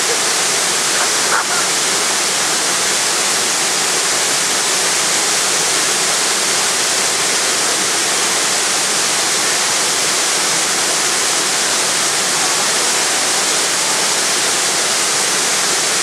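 Waterfall pouring into its plunge pool: a loud, steady rush of falling water.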